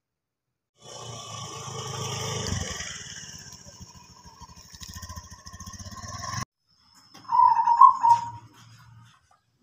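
Motor scooter engine running as the scooter rides in, cutting off suddenly about six and a half seconds in. About a second later comes a short, loud, high-pitched squeal.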